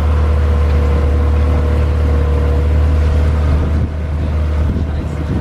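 Motorboat engine running steadily: a deep constant drone with a steady hum above it, easing off a little about four seconds in.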